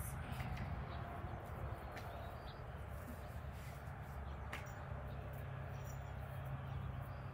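Quiet outdoor background: a low steady rumble with a faint hiss and a few faint ticks, with no clear single source.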